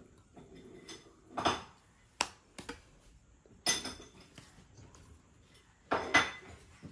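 A cat eating from a white ceramic bowl, the bowl clinking and knocking against the table several times, a second or two apart, each clink ringing briefly.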